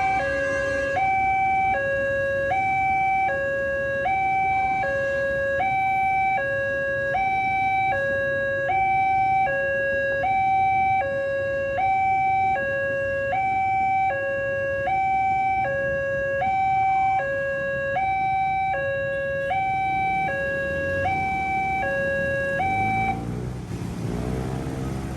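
Railway level-crossing warning siren sounding a two-tone hi-lo alarm, switching pitch about once a second. It cuts off about 23 seconds in, and a low rumble takes over.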